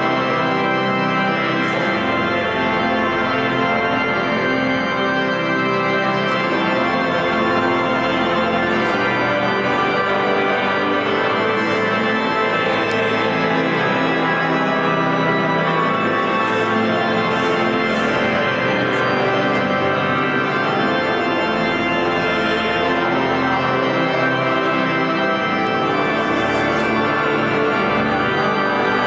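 Large church pipe organ playing loud, sustained full chords that change steadily from one to the next, deep bass under bright upper pipes.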